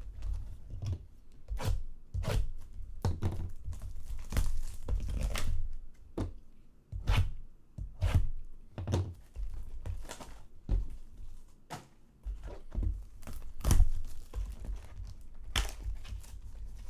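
Plastic wrap and foil card packs being torn open and crinkled, with irregular sharp thunks and snaps of cardboard boxes and cards being handled.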